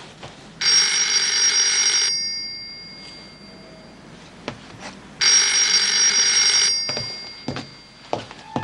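A telephone ringing twice. Each ring lasts about a second and a half and fades briefly, and the rings come about four and a half seconds apart.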